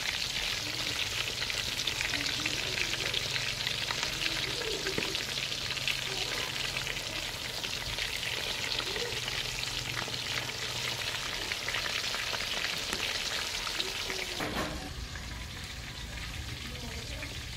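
Battered chicken pieces deep-frying in hot oil in a steel karahi: a dense, steady crackling sizzle that turns quieter about fourteen seconds in.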